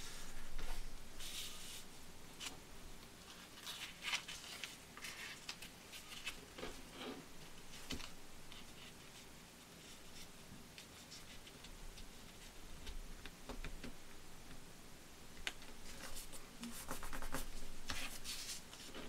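A sheet of paper being folded by hand on a cutting mat: irregular rustles and crinkles as it is lifted and turned, with fingertips pressing and sliding along the creases. The handling is busiest near the start and again near the end.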